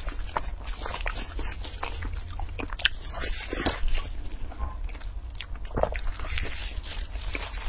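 Close-miked eating: wet biting and chewing of a soft, creamy food, with plastic wrap crinkling in gloved hands, in irregular clicks and smacks over a steady low hum.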